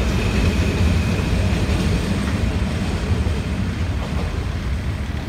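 Covered freight wagons rolling past on the rails, a steady low rumble that eases slightly as the tail of the train goes by.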